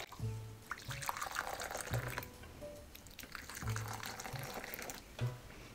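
Hot water, just off the boil, poured from a stovetop kettle into ceramic bowls in several stretches, a trickling splash, with soft background music under it.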